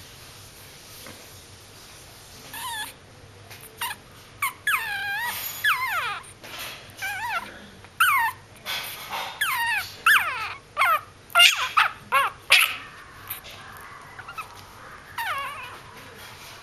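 Maltese puppy giving a string of short, high-pitched yips and whines, each one dropping in pitch. They come thick and fast in the middle and thin out near the end.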